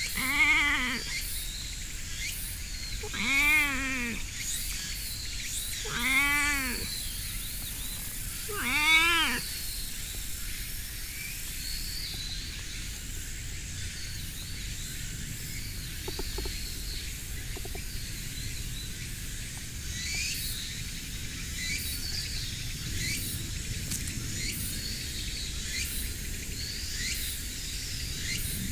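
A stray tortoiseshell cat meowing four times, about three seconds apart, each call rising and then falling in pitch. After the fourth call there are only faint chirps in the outdoor background.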